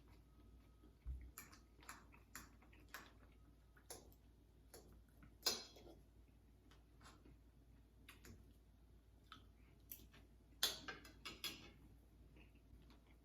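Quiet eating sounds: scattered soft clicks and taps of pancakes being eaten, with a few louder clicks about five and a half seconds in and again around eleven seconds.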